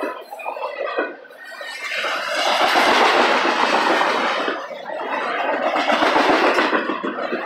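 Double-stack intermodal well cars of a freight train rolling past at trackside: a steady rush of steel wheels on rail that dips briefly about a second in and again near five seconds.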